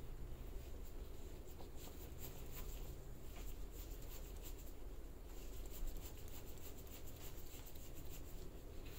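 Faint scratchy rubbing and light ticks of a small applicator working a dark liquid onto the end of a wooden pool cue, over a low steady hum.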